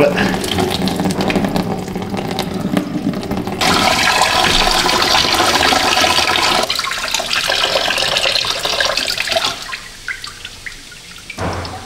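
Engine coolant pouring from a radiator drain petcock and splashing into a plastic catch pan, loudest in the middle and dying down near the end. The stream is thin, and the mechanic suspects the radiator is plugged up with deposits.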